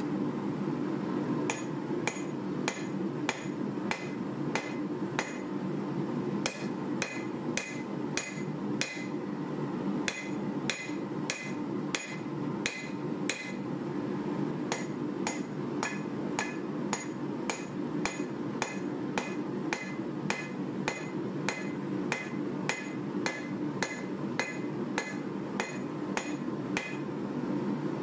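A hand hammer striking a red-hot 1095 carbon steel bar on a steel anvil, forging a knife blade: about two ringing blows a second, beginning about a second and a half in, with a few short pauses.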